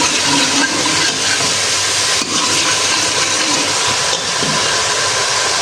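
Spiced onion-tomato masala sizzling in hot oil in a pan as it is fried down, a steady hiss.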